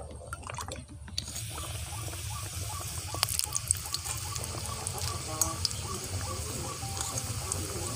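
A samosa deep-frying in hot oil in a kadai: a steady sizzle with many small crackles. It starts suddenly about a second in, after a brief moment of oil being poured into the pan.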